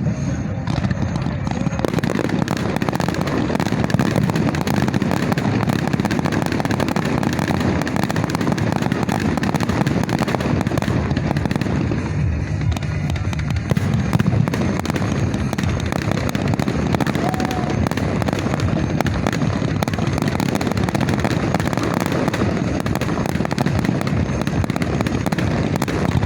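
Fireworks display: a continuous, dense barrage of bangs and crackling with no pause.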